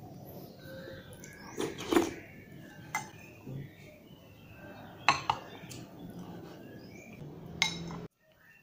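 Spoon clinking against a bowl during eating, about five sharp clinks spread through several seconds.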